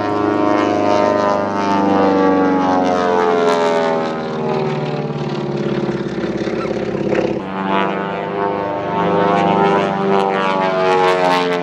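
Twin-engine Beechcraft 18 flying a display: its two propeller engines give a steady, loud multi-tone drone whose pitch slowly bends down and back up as the plane passes and turns, shifting briefly about seven seconds in.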